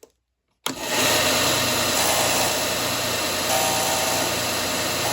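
Wen benchtop belt and disc sander running: a steady motor and abrasive noise with a low hum, cutting in abruptly about two-thirds of a second in.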